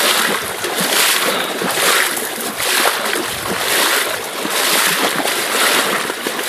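A person wading through knee-deep water, legs sloshing and splashing in a steady rhythm of strides, about one every three-quarters of a second.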